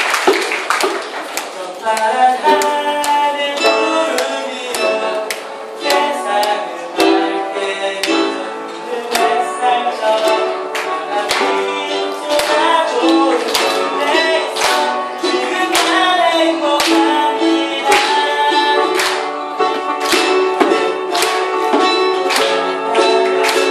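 Ukulele strummed and picked, with a djembe hand drum tapping out the beat, starting about two seconds in as applause dies away.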